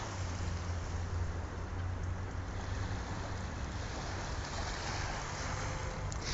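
Small sea waves washing onto a sandy beach, with wind rumbling on the microphone.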